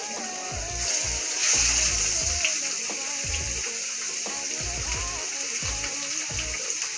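Flour-dredged red snapper fillet laid into hot oil in a frying pan: the oil flares up into a loud sizzle about a second and a half in, then keeps frying steadily. Background music with a beat plays underneath.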